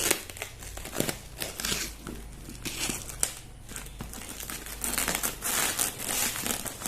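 A parcel's packaging being opened by hand: irregular crinkling and rustling, with bits of tearing.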